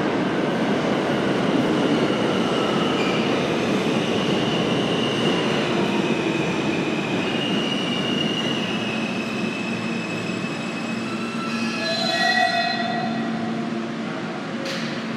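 R160A-2 subway train pulling into a station and braking to a stop. Steady rumble of wheels on rail carries high squealing and whining tones. A brief cluster of squeals comes about three quarters through as it halts, then a steady low hum while it stands.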